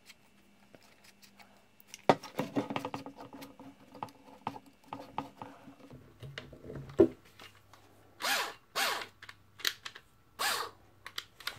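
Chuck of a small 7.2-volt cordless drill being tightened on a drill bit: about two seconds in comes a rapid run of ratcheting clicks with a low whirr, lasting about five seconds and ending in a sharp click. Four short noisy bursts follow.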